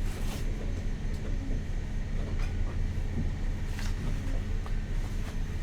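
A motor yacht's inboard engine running steadily under way: a low, even drone with a few faint clicks over it.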